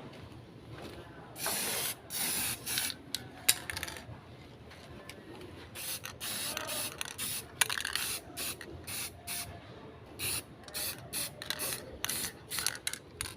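Repeated short bursts of spraying hiss: a series of squirts starting about a second and a half in, some about half a second long and others quick.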